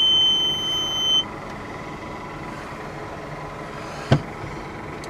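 Skid steer's electronic key-on beep: one high, steady beep lasting about a second and a half, part of the machine's start-up sequence before cranking. Then a quiet steady hum with a single click about four seconds in.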